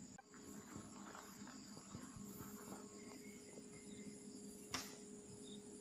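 Faint steady high-pitched buzzing of insects, with light chirps above it, and one sharp click a little under five seconds in.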